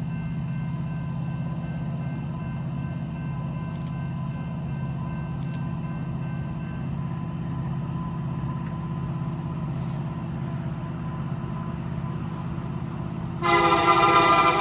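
Steady low hum with faint steady tones, then about a second before the end a locomotive horn starts suddenly and loud: the rare K3LB air horn on a Canadian Pacific SD70ACU leading a freight train toward the crossing.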